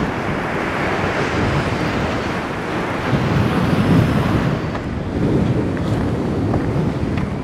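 Strong wind buffeting the microphone, with waves breaking and washing over a rocky reef; the wind rises and falls in gusts.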